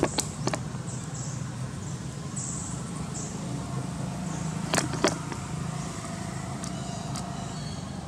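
Steady low engine hum, like a motor vehicle running nearby, with a few sharp clicks, two of them close together about five seconds in.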